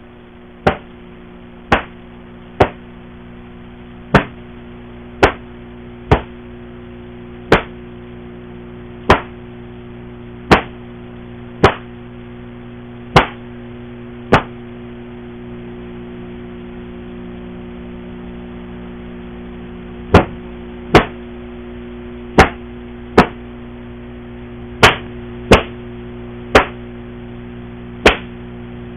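Taekwondo uniform (dobok) giving sharp snaps as the strikes and blocks of a form are thrown, roughly one a second, about twenty in all, with a pause of about six seconds midway during the form's slow movements. A steady low hum runs underneath.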